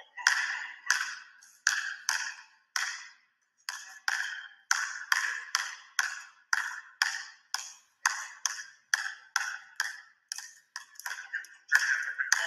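Basketball bouncing on a hardwood gym floor in a steady dribble, about two bounces a second with a short pause about three seconds in. Each bounce rings in the gym's echo.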